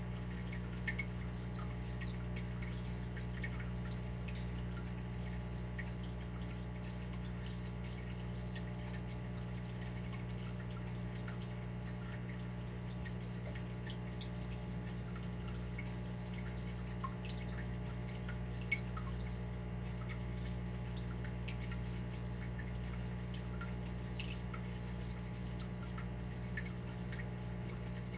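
Water dripping: irregular small drops throughout, with a few louder ones about a second in and around 17 and 19 seconds in, over a steady low hum.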